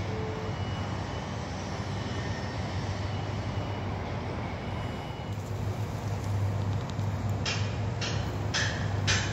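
Steady low rumble of construction-site machinery and wind. About seven and a half seconds in, a regular series of sharp metallic knocks starts, about two a second, from the crew bolting a roller coaster track section into place.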